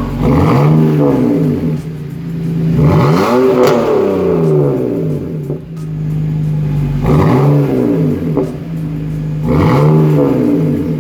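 2004 BMW M3's S54 straight-six, with its muffler and resonator deleted and a Y-pipe feeding a single stainless tip, idling and blipped four times, the revs rising and falling each time. The second blip, about three seconds in, goes highest and lasts longest.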